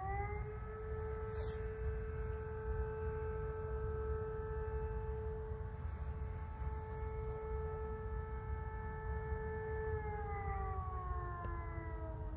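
Civil defence siren sounding a test signal: its tone rises at the start, holds a steady pitch for about ten seconds, then starts to wind down in pitch near the end, while a second siren tone holds steady underneath.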